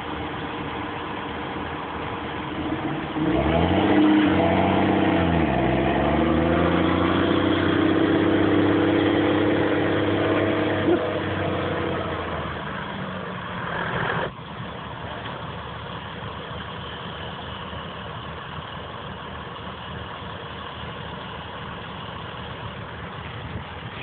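Massey Ferguson tractor's diesel engine pulling a grain trailer through stubble. A few seconds in, the engine note dips and climbs back, then holds high and steady. Partway through it cuts off suddenly, leaving a lower, steady rumble.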